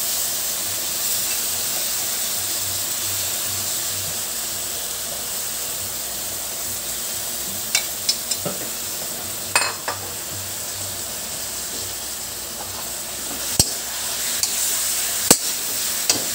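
Pieces of raw pork belly sizzling in hot oil in a wok with sautéed garlic, onion and chili, a steady hiss. Several sharp clinks of a metal utensil against the pan and plate come in the second half.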